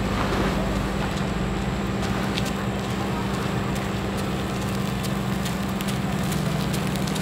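A motor vehicle's engine running at a steady speed, with a constant low hum, a rushing noise and scattered sharp clicks and rattles.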